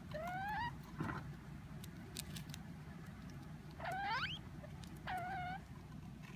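A degu squeaking three times, short calls that mostly rise in pitch, with a few faint clicks between. It is a displeased squeak given when a hand's shadow passes over it as it eats, which the owner takes for fear that its food will be taken.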